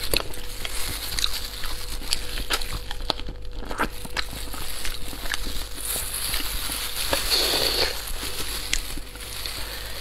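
Close-miked eating of spicy rabbit head: many short clicky mouth noises of chewing and lip smacks, with crackling of plastic gloves as the head is pulled apart.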